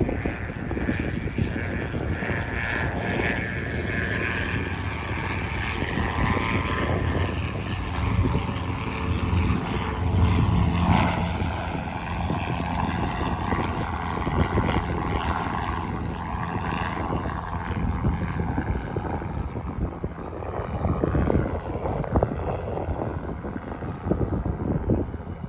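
Cessna 182 Skylanes' piston engines idling steadily on the ground, propellers turning.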